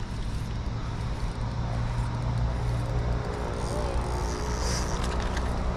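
Steady low engine hum of road traffic.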